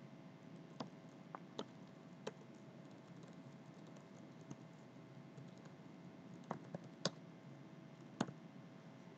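Computer keyboard keystrokes, faint and sparse: about ten separate key clicks at irregular intervals, with a few close pairs, over a faint steady hum.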